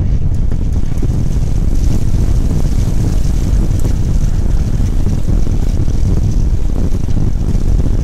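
Nissan Terrano fording a river: a steady low rumble of the engine and of water washing against the body, heard from inside the cabin.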